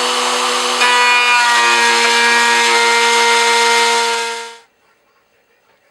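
Router spinning a flush-trim bit on a router table, trimming plywood flush: a steady motor whine with cutting noise. The whine changes pitch about a second in, and the sound stops abruptly about four and a half seconds in.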